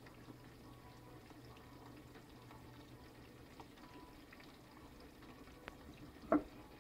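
Quiet room tone with a faint low hum that stops about halfway through. Near the end come a faint click and then one brief, short sound.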